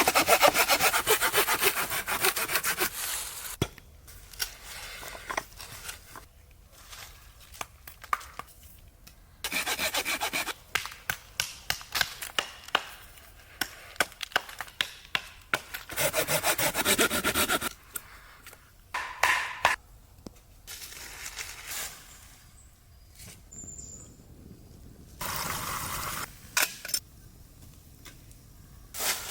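Wood being sawn by hand in several bouts of quick, even strokes, with sharp knocks and clicks in the pauses between.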